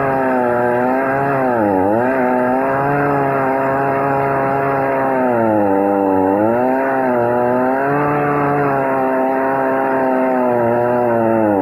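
Chainsaw running at high speed while cutting, its pitch sagging under load twice and recovering.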